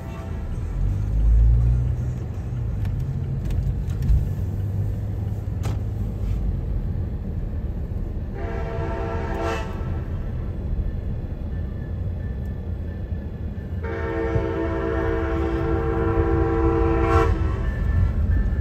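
Amtrak Siemens ALC-42 Charger locomotive sounding its horn for a grade crossing: a shorter blast about eight seconds in, then a longer one about five seconds later, over a steady low rumble.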